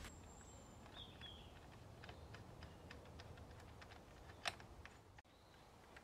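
Near silence with faint, scattered clicks and ticks of hand work on the motorcycle's side fairing as its screws are refitted, with one sharper click about four and a half seconds in. A faint bird chirp about a second in.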